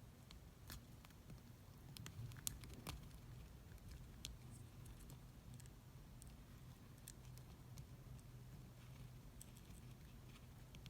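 Faint, irregular scratchy clicks from a male Japanese rhinoceros beetle, thickest about two to three seconds in and sparse after.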